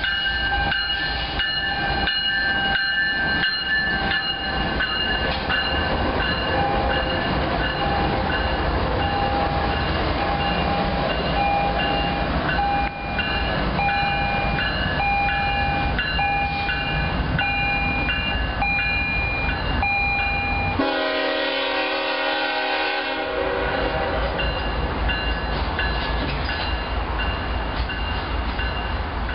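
CSX freight train passing close by: diesel locomotive running and wheels on the rails, with a tone pulsing about once a second through the middle. About two-thirds of the way through comes a short, loud horn sounding.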